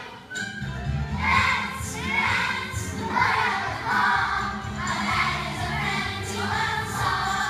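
Class of young children singing a song together as a choir, over musical accompaniment.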